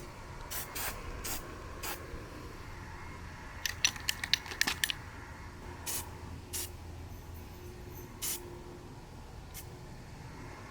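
Aerosol spray-paint can sprayed in short hissing bursts: a few spaced squirts, a rapid cluster of brief ones about four seconds in, then a few more.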